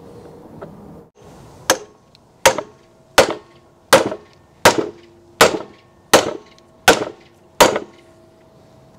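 Nine ball-peen hammer blows on a steel socket used as a driver on a part held in a vise, a steady clank about three every two seconds. Each blow rings briefly with a metallic tone. The blows start about two seconds in and stop near the end.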